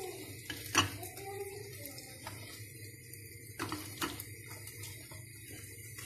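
A utensil clicking and scraping against a nonstick frying pan as fried pastry rolls are lifted out, with a few sharp clicks, the loudest about a second in.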